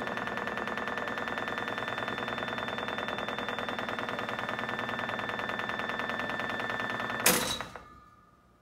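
Screw-driven organ console lift descending: its drive runs with a steady whine over a fast even flutter. About seven seconds in there is one loud clunk, and the running sound then dies away.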